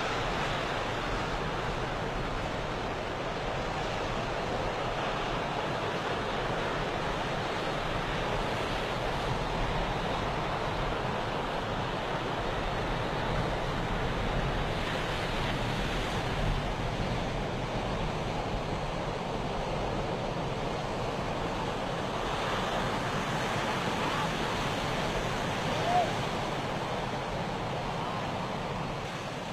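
Sea waves washing steadily on the shore, with wind buffeting the microphone. A brief sharp sound with a short rising chirp stands out near the end.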